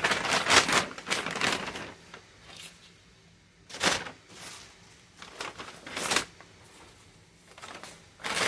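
Paper bag crinkling and rustling in several short bursts as packaged ingredients are put into it and handled.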